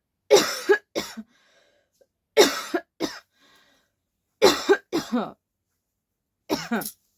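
A person coughing in four bouts about two seconds apart, each a loud cough followed by a shorter second cough. The cougher insists it is genuine coughing, not faked.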